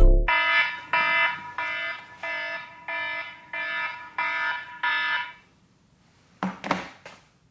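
A wake-up alarm beeping at a steady pace: about eight ringing tones, roughly two-thirds of a second apart. It stops a little past halfway, and two brief noises follow near the end.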